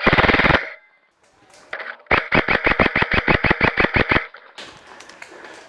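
Airsoft electric gun (AEG) firing on full auto: a short, very rapid burst right at the start, then after a pause a burst of about two seconds at roughly nine shots a second.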